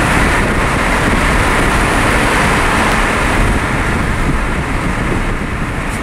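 Steady rush of road and wind noise from a car driving at highway speed, heard from inside the car.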